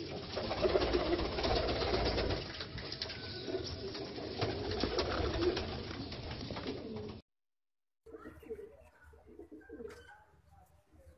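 American fantail pigeons cooing, low repeated coos. The sound cuts off abruptly about seven seconds in and fainter cooing resumes a second later.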